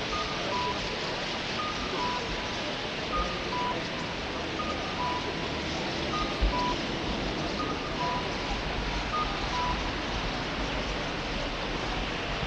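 An electronic two-note beeper, a higher note then a lower one, repeating about every second and a half and stopping about ten seconds in, over a steady dense hiss.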